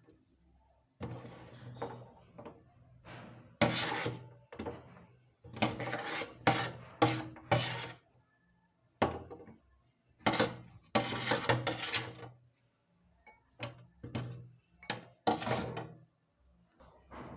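Food being worked by hand on a wooden surface in a kitchen: irregular scraping and rasping strokes, each under a second long, coming in uneven clusters with short pauses between them.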